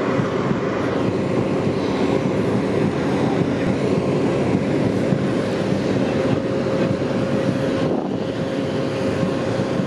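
Steady engine drone with a constant whine on one pitch, from running aircraft or ground equipment on the apron; the whine dips briefly about eight seconds in.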